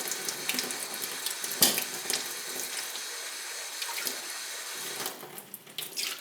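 Water running from a tap into a sink, with a few small knocks, thinning out about five seconds in.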